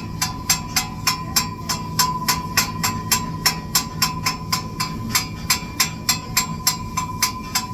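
Rapid, evenly spaced sharp taps, about five a second, over a steady low hum; the taps stop near the end.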